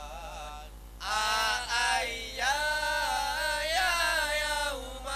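A man's voice chanting a sung prayer in long, wavering held notes, softer at first and louder from about a second in, over a steady electrical hum.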